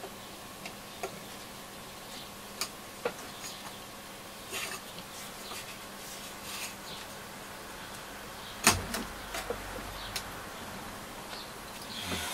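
Small handling noises of fingers working at the tuning knob of a Nordmende Transita transistor radio to pull it off: scattered light clicks and scrapes over a faint steady hum, with one sharper knock a little past halfway.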